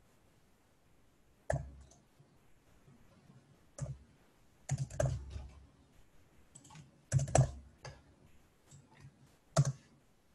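Sparse typing on a computer keyboard: single keystrokes about one and a half, four and nine and a half seconds in, and short runs of a few keys around five and seven seconds.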